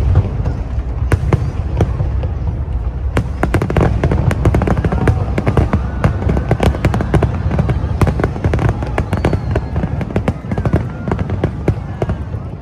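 Aerial fireworks going off in rapid succession: many sharp bangs and crackles over a deep, continuous rumble, densest from about three seconds in.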